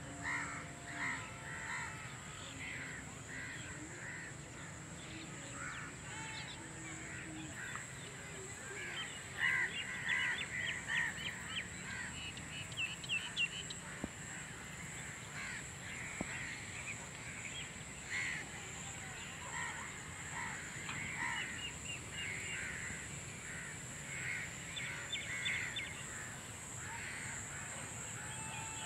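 Birds calling: short repeated caw-like calls scattered throughout, with a busier spell of rapid chattering calls around ten to thirteen seconds in, over a steady high-pitched whine.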